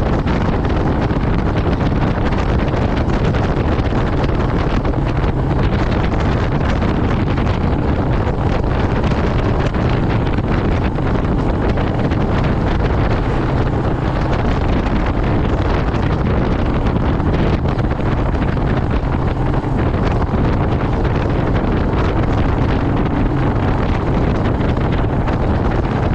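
Steady wind rush across the microphone of a Royal Enfield Meteor 350 ridden at road speed, with the single-cylinder engine's low, even drone underneath.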